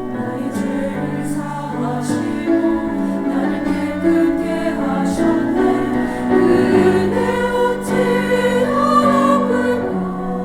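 Church choir singing a worship anthem in sustained, many-voiced harmony.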